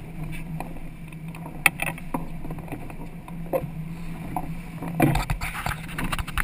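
Twin outboard motors running at a steady hum, with wind and water noise over the boat. Scattered knocks and clatter from the cockpit, the loudest at about a second and a half in and a cluster around five seconds in.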